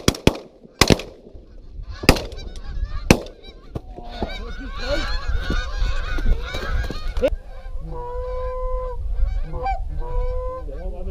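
Shotgun shots, about five in the first three seconds, then a flock of geese honking in a loud, dense clamour that thins to scattered repeated honks near the end.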